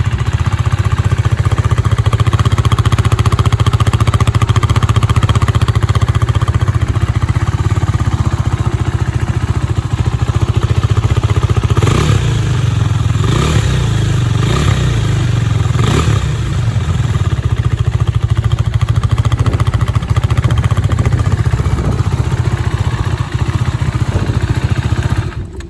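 KTM RC390 single-cylinder engine running through a Barrel Exhaust Rouge aftermarket end can and the stock catalytic converter, not yet at operating temperature after a cold start. It idles steadily, with a few quick throttle blips in the middle, and the sound cuts off near the end.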